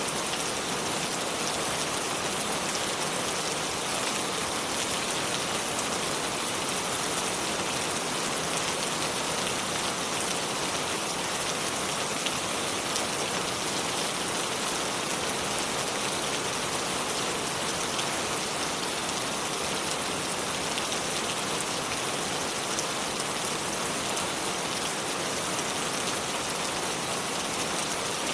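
Steady, even hiss of water with a fine, crackly patter, unchanging throughout and strongest in the high range.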